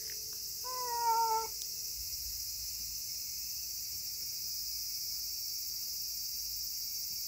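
Domestic cat meows once, a short call falling slightly in pitch, about a second in. A steady high chirring of insects runs underneath.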